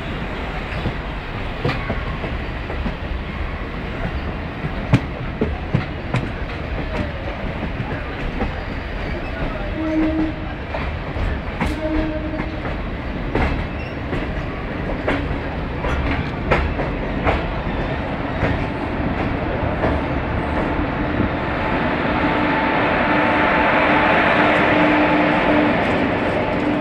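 Passenger train running, heard from inside the coach: the wheels clicking over rail joints with a steady rumble. Near the end a steady squeal and a swelling hiss come in as the train slows into the platform.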